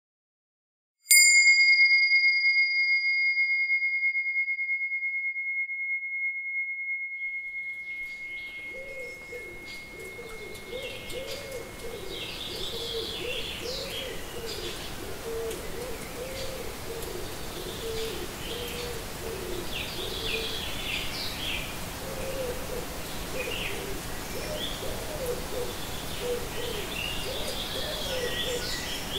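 A single chime is struck about a second in and rings out slowly over about ten seconds. As it fades, a nature soundscape comes in: birds chirping over a steady hiss, with repeated low hooting calls.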